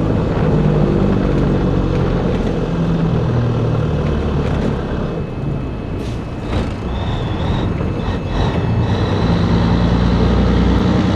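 Diesel engine of a 1984 Peterbilt 362 cabover semi heard from the cab, slowing down to a stop. It runs quieter for a few seconds with a few clicks, then the engine note picks up and rises as the truck pulls away again.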